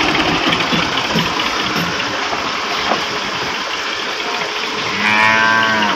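Diesel farm tractor engine running steadily under work. About five seconds in, a short drawn-out pitched call rises above it.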